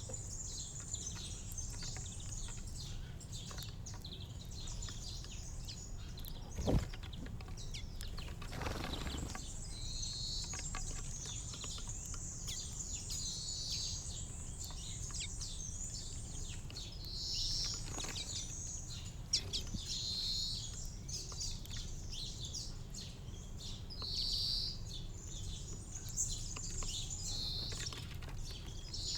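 Small garden birds chirping continuously at a feeder. From about ten seconds in, one louder call note repeats every three to four seconds, over a low steady background rumble, with a single brief knock partway through.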